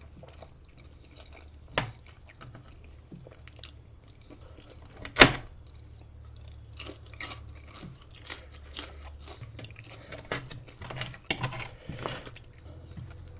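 A person chewing a mouthful of food close to the microphone, with many small clicks throughout and a few sharp knocks. The loudest knock comes about five seconds in.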